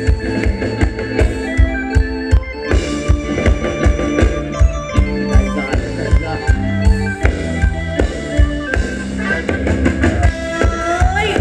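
Live band playing Thai ramwong dance music: a steady, regular drum beat under sustained keyboard chords, with a short rising slide near the end.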